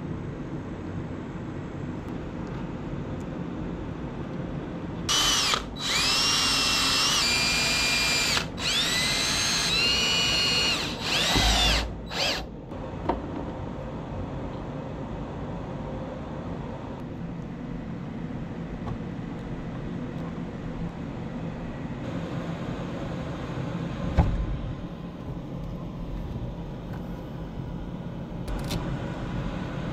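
Cordless drill running in four or five short bursts, its motor whine rising in pitch as each burst spins up. A steady low hum fills the rest of the time, with a single knock later on.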